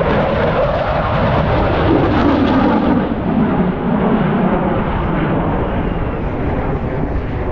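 Loud jet noise from an RAF Eurofighter Typhoon's twin EJ200 turbofans during a display pass. Its tone falls in pitch about two to four seconds in as the jet goes by.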